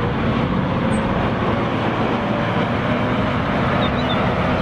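Caterpillar wheel loader's diesel engine running steadily as the machine drives across gravel.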